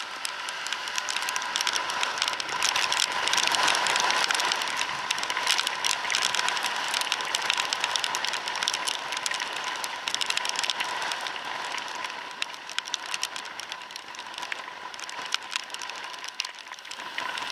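Riding noise from a camera on a Suzuki Address 110 scooter moving through traffic in wind and rain: a steady rush of wind and spray over the microphone with constant fine crackling, and a thin steady whine over it.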